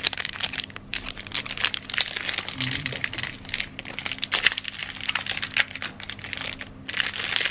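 Plastic snack-bar wrapper crinkling as it is torn open by hand: dense, fast crackling with a short pause near the end.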